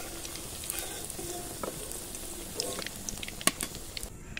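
Papaya pakoras deep-frying in hot oil in an iron karahi: a steady sizzle with scattered crackling pops, during the light first fry of a double fry. A metal ladle works in the pan, with one sharp click against the wok about three and a half seconds in.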